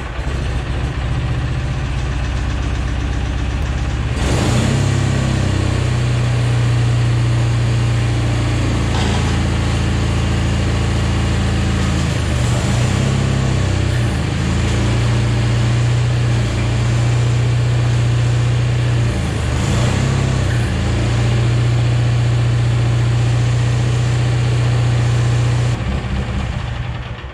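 Bolens Midget 10 garden tractor's engine running after being started for the first run on a newly fitted loader valve. It runs steadier and louder about four seconds in, its note sags briefly a few times as the valve is worked to raise the loader, and it is shut off near the end.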